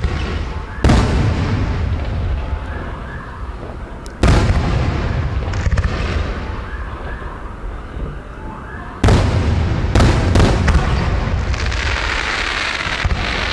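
Aerial firework shells bursting: three heavy booms a few seconds apart, each dying away slowly, then a quick run of sharper bangs and a stretch of dense crackling near the end.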